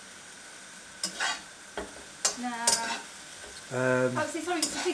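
Strips of beef sizzling in a wok on a gas hob, with a slotted spatula scraping and knocking against the pan several times as the meat is stirred. A voice says "nah" near the end.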